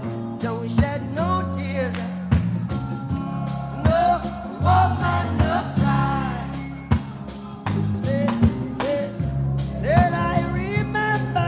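A recorded song playing: a singing voice over a steady beat of drums, with bass and guitar.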